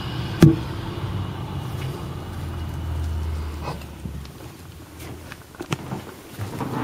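A motor vehicle passing in the street, its low rumble swelling and then fading away about four seconds in. A sharp knock sounds about half a second in, with a few lighter clicks later.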